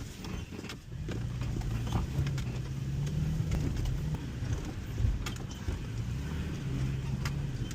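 Off-road vehicle's engine running at low, slightly varying revs, with scattered knocks and clicks over it.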